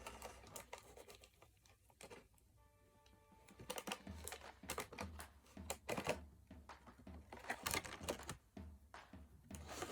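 Quick light clicks and taps of hands handling a toy's plastic and cardboard packaging. Faint background music comes in about four seconds in, with a low pulsing beat.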